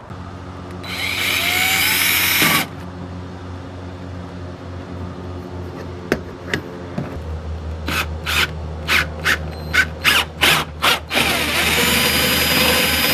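Cordless drill boring through the plastic kayak deck for the stabilizer bracket's screws. It runs briefly about a second in, then comes a rapid string of short trigger bursts, and it runs steadily from about eleven seconds.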